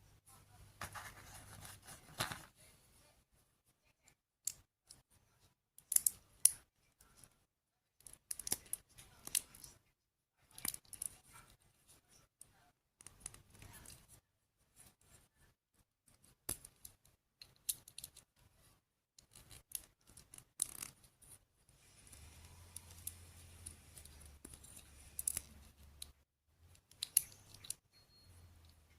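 Irregular sharp clicks and small scratches of plastic toy parts and packaging being handled during assembly.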